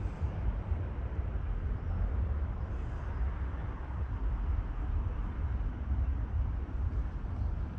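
Wind rumbling on a GoPro Hero 8's microphone: a steady, even low noise with no distinct events.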